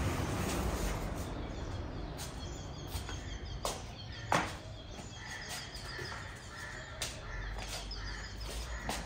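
Crows cawing a few times, the loudest call about four seconds in, with faint repeated chirps of small birds.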